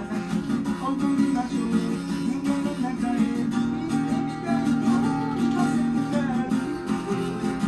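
Music: an acoustic guitar playing chords over a moving melody line.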